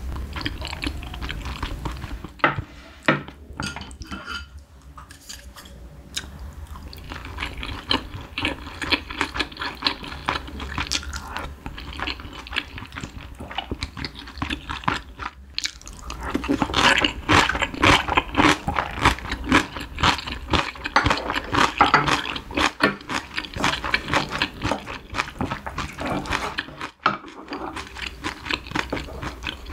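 Close-miked mukbang eating sounds: slurping spicy broth off a spoon, wet chewing of soft braised cutlassfish and rice, and small clicks of spoon and chopsticks. The eating noise grows busiest and loudest a little past the middle.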